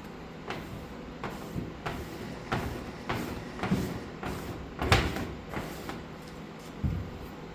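A series of irregular knocks and clunks, about one or two a second, loudest about five seconds in.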